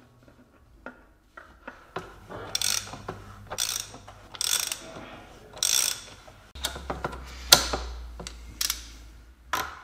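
Ratchet wrench clicking in repeated strokes as the plastic oil filter housing cap on a Mercedes A150 engine is screwed down, first on a ratchet and extension, then on a torque wrench being brought to 25 N·m. The sharpest, loudest clicks come in the last few seconds.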